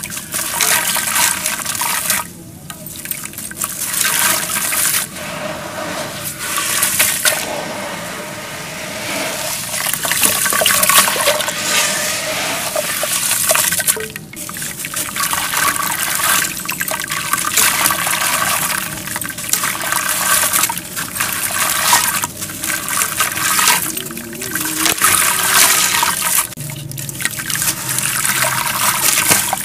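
Water sloshing and fizzing in a basin as hands dip, squeeze and crumble chunks of dry red-brown dirt into it, the soaked dirt foaming; the wet crackling hiss pauses briefly every few seconds between handfuls.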